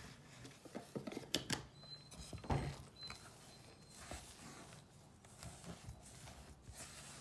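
A utensil stirring thick, sticky cloud dough of whipped topping and cornstarch in a metal bowl: soft, irregular scrapes and taps against the bowl.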